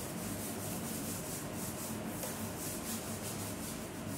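A chalkboard eraser wiping chalk off a green chalkboard, a dry rubbing hiss in repeated back-and-forth strokes.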